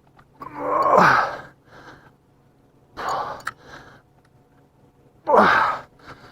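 A man's breathy, effortful voice sounds, three of them about two seconds apart, from straining while fighting a heavy catfish on rod and reel. The first is the longest and falls in pitch.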